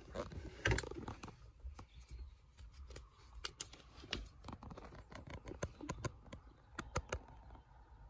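Handling noise from a phone camera moved around under a car's dashboard: scattered light clicks and rustles, over a faint low rumble.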